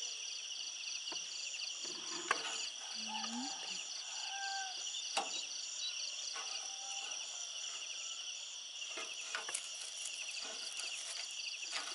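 Chorus of night insects such as crickets, a steady high trilling with a fast even pulse. A few sharp clicks sound over it, about two and five seconds in.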